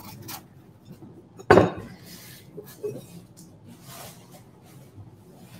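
Tableware and boxes being handled and set down: one sharp knock about a second and a half in, then light clicks and rustles.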